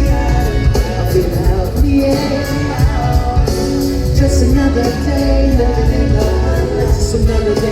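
Live hip-hop music: a sung vocal melody over a heavy bass beat.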